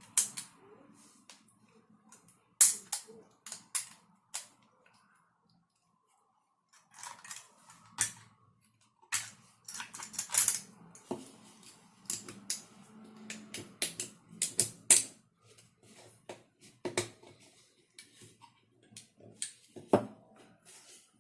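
Hard 3D-printed plastic gun parts being handled and fitted together: irregular sharp clicks and knocks, with a pause of a second or two about five seconds in.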